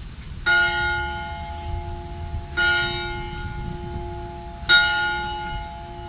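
A bell struck three times, about two seconds apart, each stroke ringing on and slowly fading.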